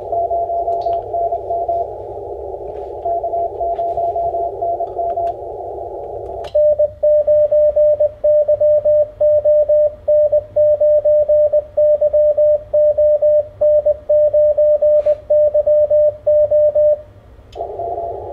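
Icom IC-7300 transceiver in CW mode. For about six seconds its speaker gives narrow-filtered band static with a faint Morse code signal from another station. Then the radio transmits and its sidetone sends a loud string of Morse dots and dashes for about ten seconds, keyed from the laptop. The static returns near the end.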